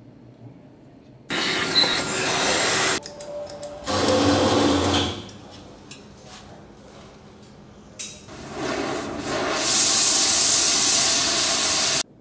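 Oxy-fuel torch flame hissing in three separate stretches that start and stop abruptly, the last and longest about four seconds. A few light clicks and taps fall in the quieter gaps between them.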